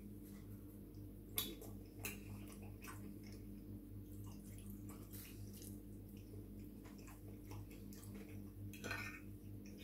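A metal fork clicking against a plate, sharply twice about a second and a half and two seconds in, with quiet chewing and a short mouth sound near the end, over a steady low hum.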